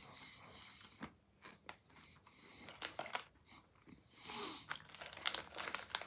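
Close-up chewing and crunching of a chocolate-coated biscuit stick with crunchy almonds, the crunches getting louder and more frequent about halfway through.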